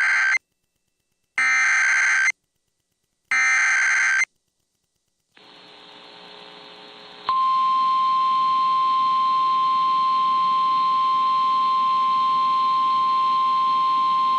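Emergency Alert System SAME header: three loud digital data bursts of about a second each, the first already underway. A faint radio hiss follows, then about seven seconds in the steady 1050 Hz NOAA Weather Radio warning alarm tone starts and holds. Together they mark the start of a tornado warning broadcast.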